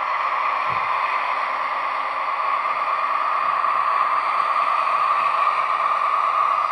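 Recorded engine sound of an FS D345 diesel locomotive played by an ESU sound decoder through the small speaker of a Roco model locomotive, running steadily as the model moves along the track and growing slightly louder over the last few seconds.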